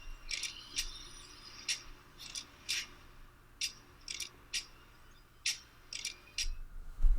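About a dozen light metallic clicks and clinks at irregular intervals, some with a brief ring, from a small brass padlock and its metal parts being handled.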